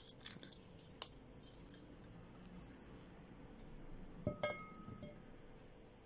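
Faint clicks of the screw cap being twisted off a glass olive oil bottle, then a brief glassy clink with a short ring about four and a half seconds in as the bottle is handled for pouring.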